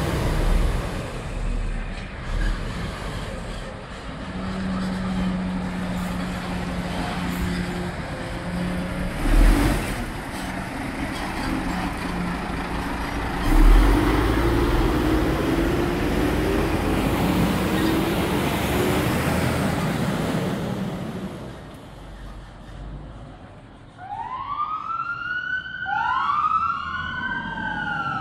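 Scania fire engines' diesel engines running as the trucks pull out and drive off, with the engine note rising as one accelerates. About 24 s in, a siren starts, wailing up and down about every two seconds.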